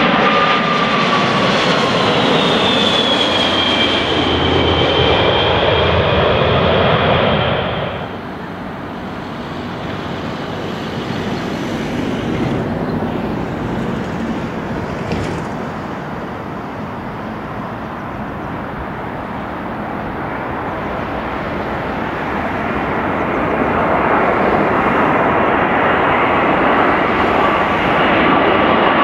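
A British Airways Boeing 747-400 passes low overhead on landing approach, its four jet engines whining with high tones that slide down in pitch. About eight seconds in it cuts to a more distant Boeing 787-9 on approach, whose twin-engine noise starts quieter and rises steadily as the plane nears.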